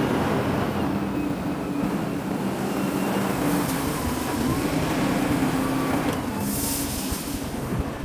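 Wheel loader's diesel engine running steadily as the machine reverses and drives back to a dump truck, lifting its bucket. About six and a half seconds in comes a short hiss.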